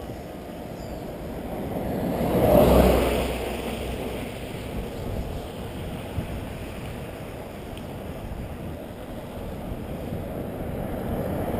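Wind rushing over a helmet-mounted action camera's microphone as the mountain bike rolls along a paved road. The rush swells loudest about two to three seconds in and builds again near the end.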